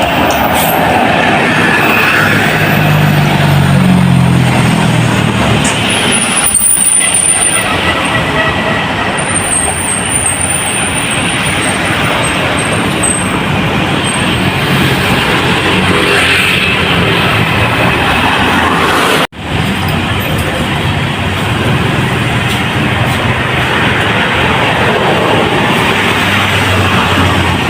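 Road traffic: large tour buses and trucks passing close by, their engines and tyres making a steady, loud noise. There is a brief, sudden dropout about two-thirds of the way through.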